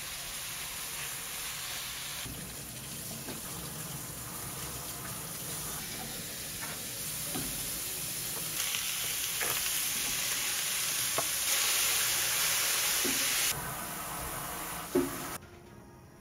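Marinated beef sizzling as it is stir-fried in a pan, with a few light taps of wooden chopsticks against the pan; later, julienned carrots and onions sizzle in the pan. The sizzle cuts off about a second before the end.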